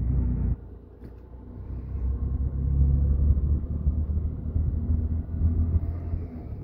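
Auto-rickshaw's engine running, heard from inside the open passenger cabin as a low rumble; about half a second in it drops away suddenly, then builds back up over the next couple of seconds as the rickshaw pulls on.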